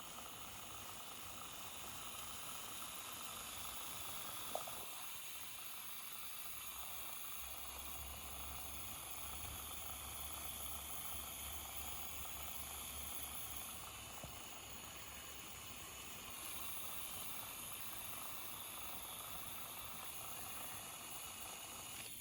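Battery-powered handheld pre-treat sprayer of a Hoover pet stain carpet cleaner spraying spot cleaning solution onto carpet: a steady hiss, with a faint low hum in the middle.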